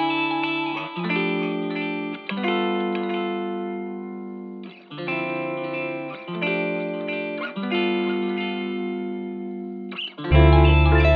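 Background music: held chords that change about once a second, with a deep bass coming in near the end.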